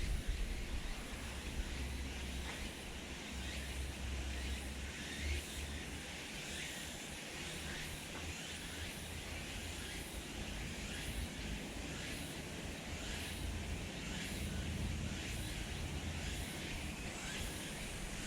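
Outdoor ambience: a low rumble that swells and fades, like wind on the microphone, under faint high chirps.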